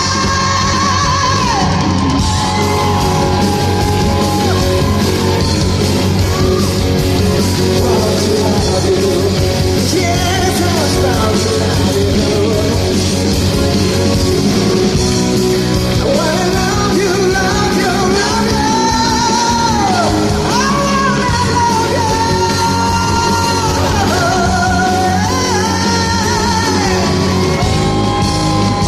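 Live rock band playing in a large concert hall under a high sung melody that glides and wavers, with yells from the audience.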